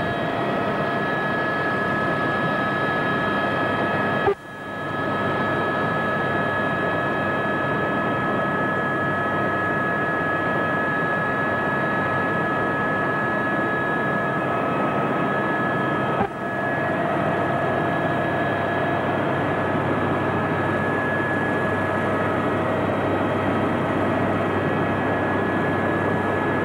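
Cabin noise of an Aérospatiale AS350B Squirrel helicopter in flight, heard from inside the cockpit: its Turbomeca Arriel turboshaft and rotors give a steady, loud noise with a constant high turbine whine. The sound breaks off briefly with a click about four seconds in and again about sixteen seconds in.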